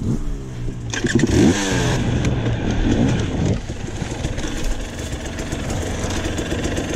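KTM dirt bike engine running and being revved, its pitch rising and falling with the throttle, loudest about a second and a half in, then settling to a steadier run.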